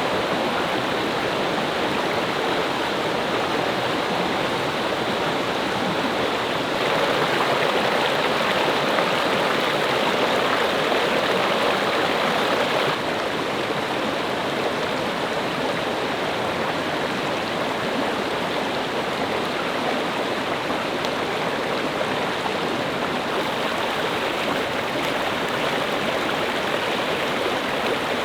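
Water of a mountain stream and waterfall rushing steadily, a continuous hiss-like flow that swells louder for several seconds about a third of the way in.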